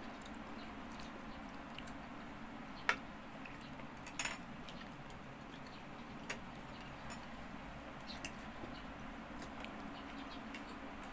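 A few sharp clicks of a metal fork against a ceramic plate while eating, the strongest about three and four seconds in, over a steady low hum.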